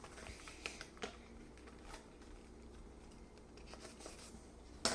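A few scattered light clicks and small scratching handling noises, with a sharper click near the end.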